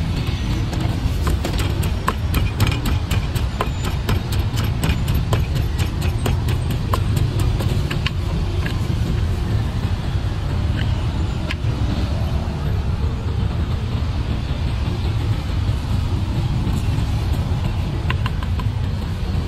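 Wooden pestle knocking in a large clay mortar, about three or four knocks a second for the first half, then only a few scattered knocks as a spoon mixes the contents. A steady low rumble of traffic runs underneath and is the loudest sound.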